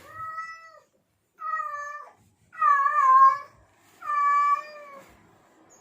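Male cat in heat calling: four drawn-out yowling meows in a row, the third and fourth the loudest, each wavering slightly in pitch. This is the mating call of a tomcat seeking a female.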